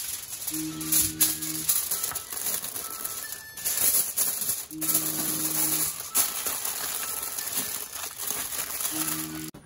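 Aluminium foil crinkling and rustling as it is folded by hand around a leaf-wrapped bundle. Underneath is background music with a low note that comes back about every four seconds.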